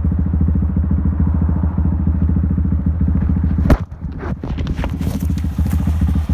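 Honda Grom's single-cylinder engine running steadily through a Zoom full-loop stainless exhaust, picked up from inside a leather jacket pocket. About three and a half seconds in, a sharp knock; the engine then sounds quieter under scattered knocks and rustling as the phone moves about.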